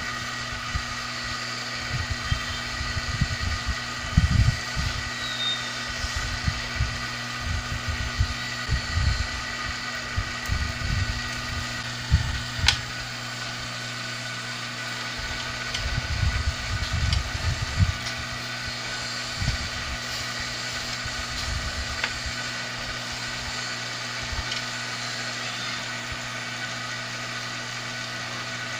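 Hot-air rework station blowing steadily: its small blower fan whirring and air hissing from the nozzle as it heats solder on a circuit board. Irregular low bumps and a few sharp clicks come over it, the sharpest about twelve seconds in.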